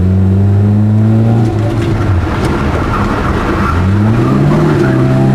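Lada 2107's four-cylinder engine heard from inside the cabin, pulling hard and rising in pitch, falling away about one and a half seconds in, then climbing again near the end.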